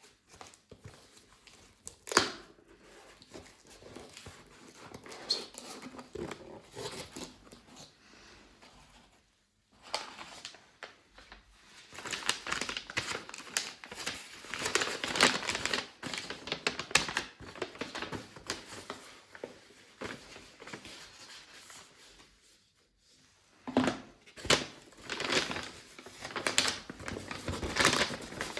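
SSD retail packaging being handled and opened by hand: irregular crinkling and rustling of plastic and cardboard, with tearing and sharp clicks, the loudest click about two seconds in. It pauses briefly twice.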